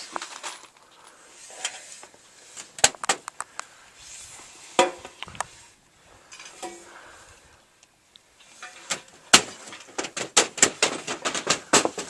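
Sharp metallic clinks and taps of screws and tools being handled against metal, scattered at first and coming thick and fast near the end.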